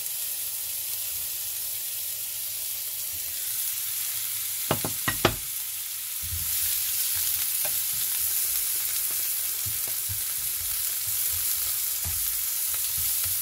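Sliced onions frying in butter in a pan: a steady sizzle that grows louder about six seconds in. Three sharp knocks come a little before that.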